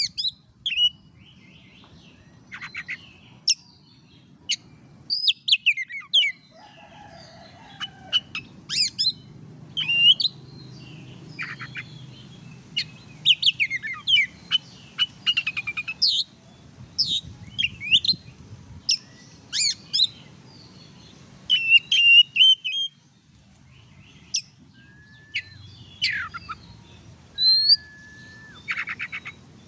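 Oriental magpie-robin (kacer) singing a long, varied song. It runs in short phrases of sweet whistles, rising and falling slurred notes, buzzy chatter and fast rattling trills, with brief pauses between them. A few level held whistles come near the end.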